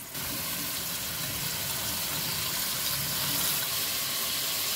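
Marinated chicken pieces sizzling in hot oil in an aluminium pot: a steady hiss that starts abruptly.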